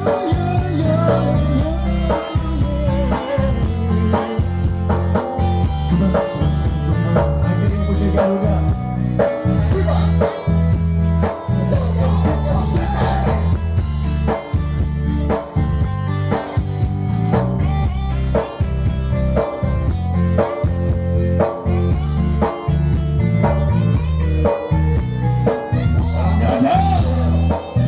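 Live band music with guitar, a heavy bass line and a steady drum beat.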